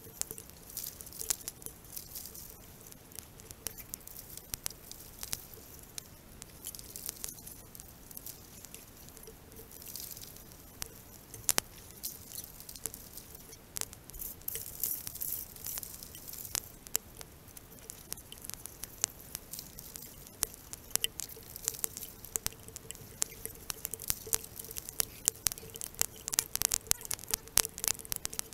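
Creek water trickling through a small Angus MacKirk sluice box, under a constant patter of sharp drips that grows busier near the end.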